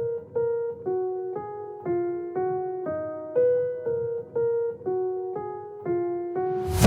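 Background music: a slow solo piano or electric-piano melody, single notes about two a second, each ringing out and fading.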